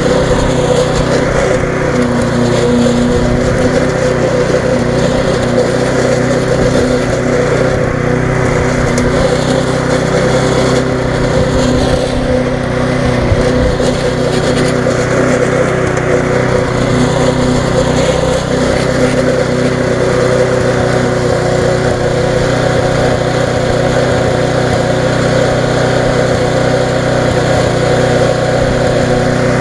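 Briggs & Stratton single-cylinder engine on a Viking rotary mulching lawnmower running steadily while the mower is pushed across the lawn, its blade cutting grass.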